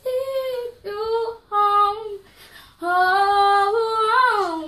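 A young girl singing unaccompanied: three short notes, a brief pause, then one long held note that lifts near the end and falls away.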